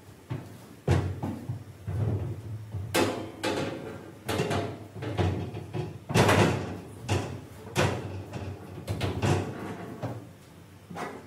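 Aluminium frame clunking and scraping against the aluminium boat's hull and deck as it is lowered and fitted into place, in a run of irregular knocks and rubs, loudest about six seconds in.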